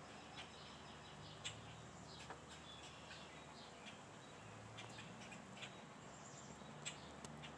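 Wild birds chirping: many short, scattered, faint chirps from several birds, over a low steady hum.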